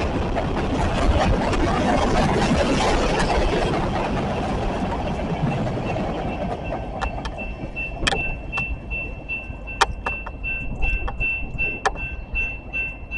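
Train rolling past, its loud rumble fading over the first half. Then come scattered sharp clicks and a steady high tone.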